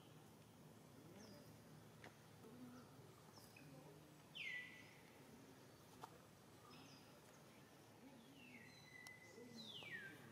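Faint, high-pitched crying squeals of a baby monkey, each sliding downward in pitch. The loudest comes about halfway through, and a quick run of three comes near the end.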